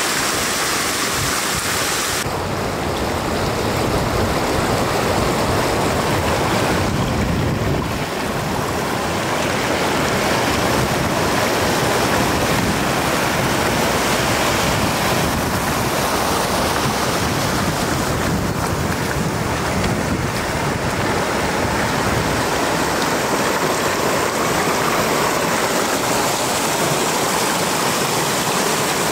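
Floodwater rushing as it pours over the edge of a road, a steady loud rush.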